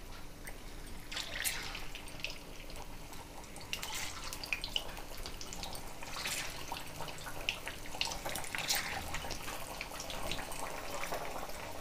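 Pieces of set besan (gram-flour) batter deep-frying in hot oil on a high flame: a steady sizzle with irregular crackles and spits throughout.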